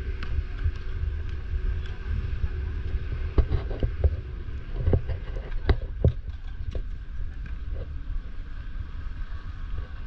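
Outdoor ambience: a steady low rumble with faint voices, and several sharp knocks in the middle.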